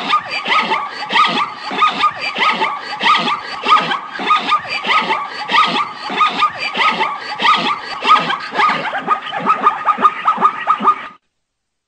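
Zebra calling: a long run of rapid, evenly repeated barking yelps, about three or four a second, cutting off suddenly near the end.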